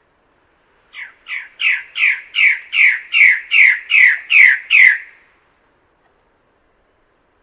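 A bird-of-paradise giving a series of about ten harsh, downward-sweeping calls, some two and a half a second, growing louder over the first few and stopping about five seconds in.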